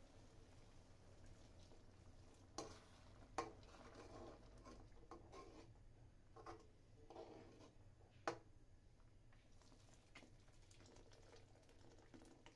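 Faint stirring of watery gravy in a steel kadai with a slotted steel spatula: soft scraping and sloshing, broken by three sharp taps of metal on the pan, the loudest about eight seconds in, over a low steady hum.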